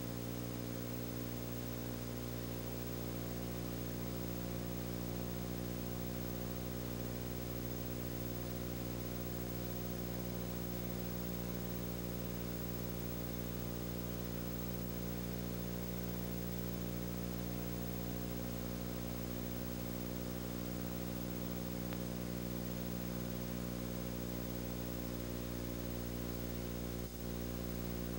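Steady hum with many overtones, unchanging throughout, over a faint hiss, with a brief dropout near the end.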